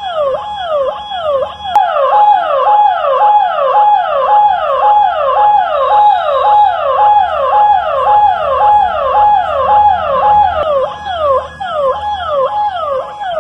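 Electronic alarm siren of an AI wildlife-detection camera wailing in a fast, evenly repeating sweep that falls in pitch a couple of times a second, set off by the camera recognising an elephant.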